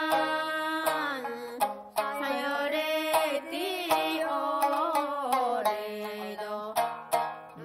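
Goze song: a woman singing in long, wavering, sliding notes over sharp plucks of a shamisen.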